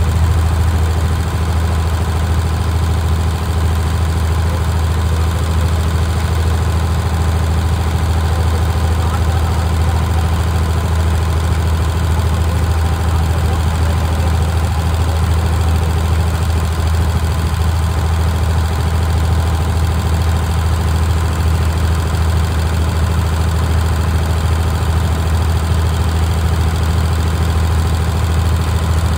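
Boat engine running steadily while underway: a loud, even low drone that does not change, with the wash of the boat's wake.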